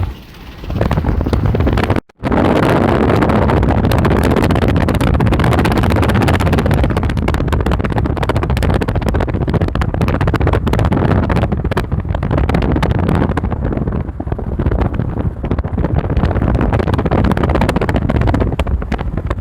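Strong thunderstorm winds buffeting the microphone: a loud, steady rush of noise, broken by a brief dropout about two seconds in.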